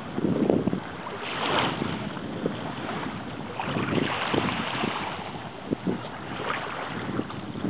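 Wind gusting across the microphone in uneven surges, over the soft wash of a calm sea at the shore.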